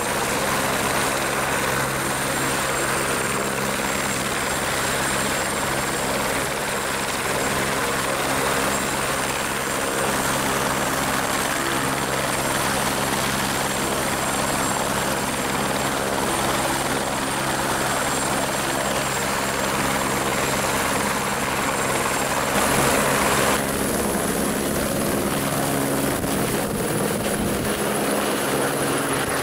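Helicopter turbine and rotor running at full speed with a steady high whine. About three-quarters of the way through, the pitch of the whine steps up and the rotor sound changes as the helicopter lifts off and climbs overhead.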